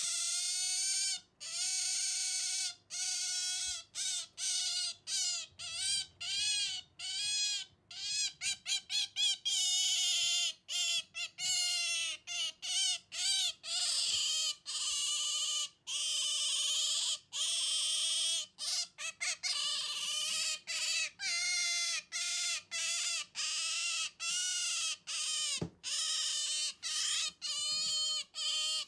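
Asian small-clawed otter squealing over and over: high-pitched calls that rise and fall, one after another with short breaks, sometimes in quick runs. It is the possessive protest of an otter guarding a stuffed toy against a hand reaching to take it.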